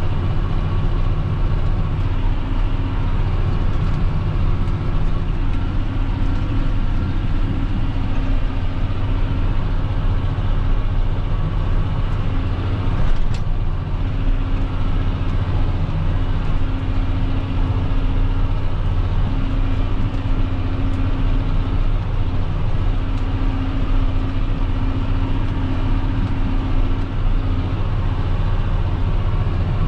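John Deere 6530 tractor's diesel engine running steadily, heard from inside the cab, with a single brief click about thirteen seconds in.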